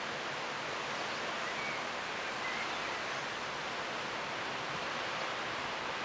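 Leaves of a tree rustling steadily in the wind, an even hiss without breaks.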